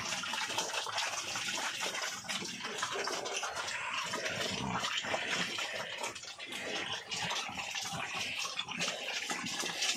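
Several pigs feeding from a trough of wet feed: a continuous wet slurping and chomping.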